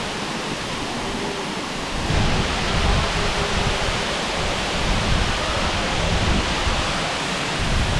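Waterfall rushing, a steady noise of falling water that grows louder and deeper from about two seconds in.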